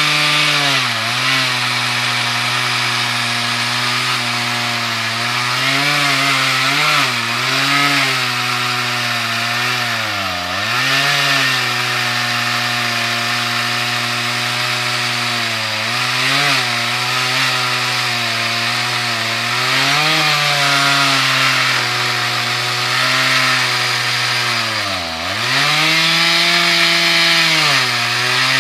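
Chainsaw on an Alaskan chainsaw mill ripping a slab lengthwise from a monkey puzzle log, the engine running steadily at high revs under load over the hiss of the cut. Its pitch dips briefly several times, most deeply about ten seconds in and again about twenty-five seconds in.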